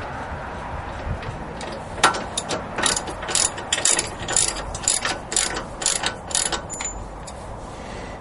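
Hand socket ratchet clicking in short back-and-forth strokes, about two a second, from about two seconds in until near the end, as it turns out a wheel hub assembly mounting bolt.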